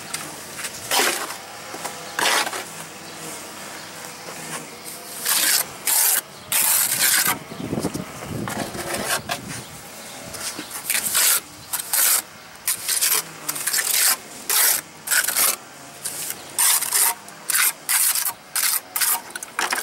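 Short, irregular scraping and rubbing strokes as a wet cement patch is worked into a crack in a stucco wall. The strokes come thicker from about a quarter of the way in.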